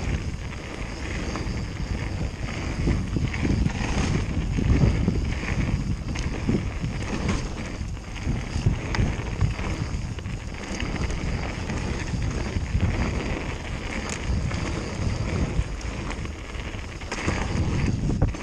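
Mountain bike riding fast down a gravel forest trail: wind buffeting the microphone over the rumble of knobbly tyres on gravel and the rattle of the bike, with scattered small clicks and knocks.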